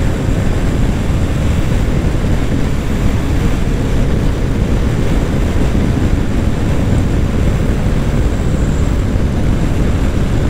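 Steady roar of wind and engine noise from a Bajaj Dominar 400's single-cylinder engine ridden flat out at about 145 km/h. Wind rushes over the microphone, with the engine's drone underneath.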